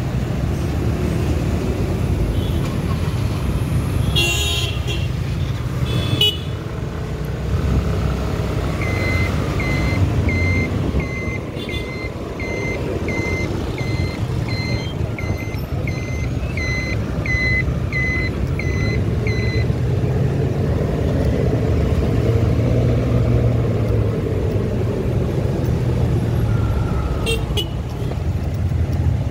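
City road traffic heard from a moving motorcycle: a steady engine and road rumble, with horns honking about four to six seconds in and again near the end. In the middle a run of evenly spaced high beeps, a little over one a second, goes on for about ten seconds.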